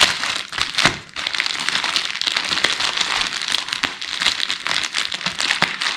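Packaging being handled during an unboxing: continuous crinkling and rustling, with a couple of sharper clicks near the start.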